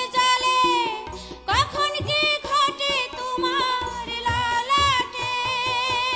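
Bengali folk song: a high melodic line that slides between notes and wavers in pitch, over a beat of drum strokes.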